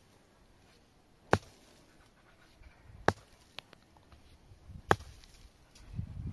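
Three sharp chopping strikes about two seconds apart, with a couple of lighter knocks between them, and a low rumbling sound rising near the end.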